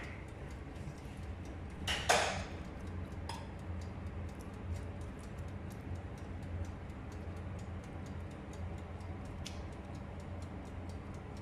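Basting brush dabbing sauce onto hot, steaming chicken pieces on a metal baking tray, with one louder knock about two seconds in and a few smaller ones later. Fast, faint, irregular ticking and crackling runs throughout over a low steady hum.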